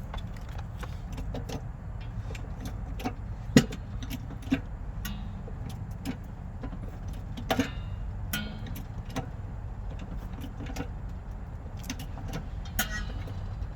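Scattered metal clicks and knocks from a car jack being set up and worked to lift the car, the loudest about three and a half seconds in, over a steady low rumble.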